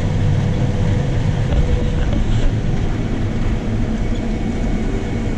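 Combine harvester running while cutting soybeans: a steady, loud, low drone of engine and threshing machinery.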